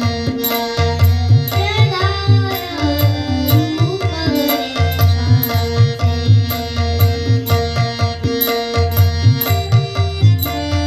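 Live Indian devotional music: tabla keeping a steady rhythm with deep bass strokes, under a sustained harmonium and tanpura drone. A woman's voice sings with sliding ornaments about two seconds in.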